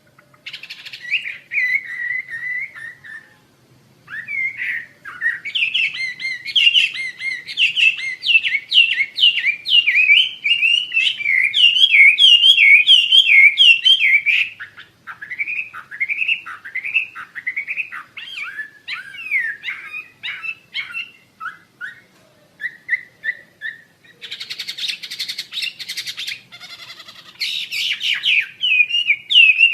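Hwamei (wambi) singing: long runs of rapid, varied, down-slurred whistled notes with short pauses between phrases, and a harsh rasping stretch a few seconds before the end.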